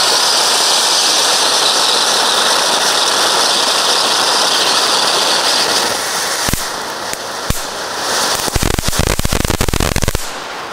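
Small F1 volcano fountain firework burning on the ground: a loud, steady hiss of spraying sparks for about six seconds. Then two sharp cracks, and near the end a dense burst of crackling that cuts off suddenly.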